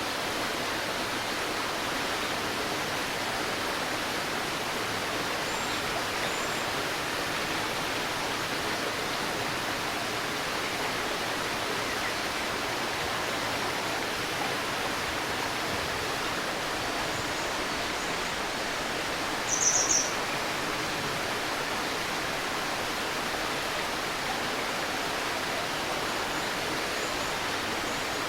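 A shallow stream babbling steadily over stones. About two-thirds of the way through, a bird gives one short, high, chirping call, the loudest sound here, and a few faint chirps come earlier.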